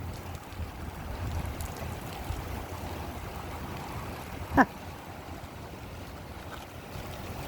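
Wind buffeting the microphone with a steady low rumble. About four and a half seconds in there is one short, sharp sweeping sound, much the loudest moment.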